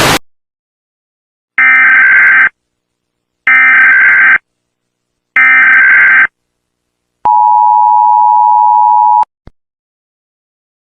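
Emergency Alert System tones: three bursts of digital SAME header code, each about a second long and about a second apart, then the steady two-tone attention signal held for about two seconds before it cuts off suddenly.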